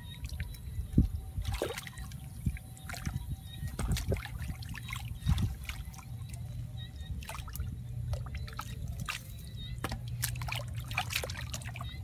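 Hands digging and pressing into wet sand in shallow water: irregular squelches, trickles and small splashes.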